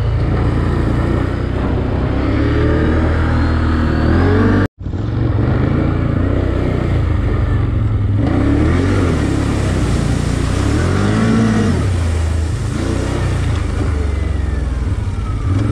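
Can-Am Outlander ATV engine running under throttle, its pitch rising and falling as it revs up and eases off. The sound drops out completely for an instant just under five seconds in.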